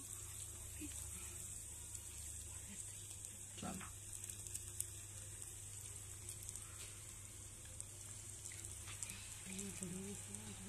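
Potato fries deep-frying in hot oil in a small steel pan: a steady high sizzle with fine crackles.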